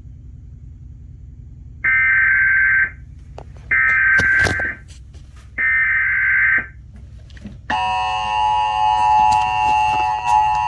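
Emergency Alert System SAME header: three short bursts of screechy data tone, about a second each, marking the start of a new alert. About eight seconds in, the steady two-tone EAS attention signal begins. A steady low hum runs underneath.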